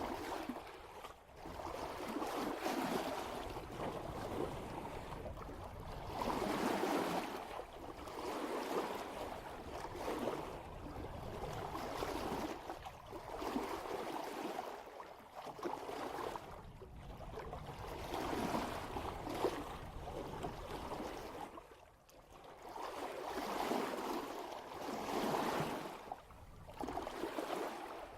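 Water rushing and splashing past a sailboat's bow at about 3 knots, swelling and fading in irregular surges every one to three seconds.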